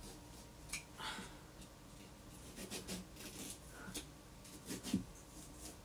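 Kitchen knife stabbing and sawing into a pumpkin's thick rind: faint scattered scrapes and crunches, with a soft knock about five seconds in.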